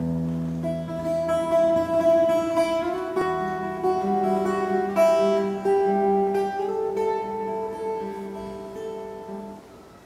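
Acoustic guitar playing a slow instrumental introduction, a new note or chord about once a second, each left to ring. It dies away near the end.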